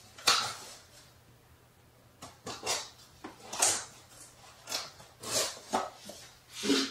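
Box cutter slicing through packing tape on a cardboard box: a string of about eight short scratchy cuts and scrapes, irregularly spaced.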